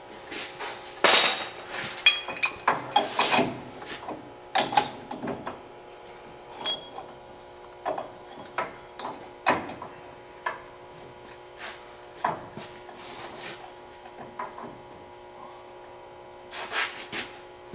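Irregular clinks, knocks and scrapes of metal tools and parts being handled and fitted during a truck ball joint install, the loudest knock about a second in, over a faint steady hum.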